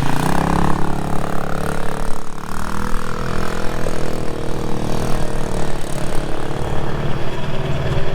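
Newly assembled Hawk 250 dirt bike's single-cylinder four-stroke engine running on its first start-up, revving up and back down in the first couple of seconds, then running more steadily. Its carburetor is thought to need adjusting.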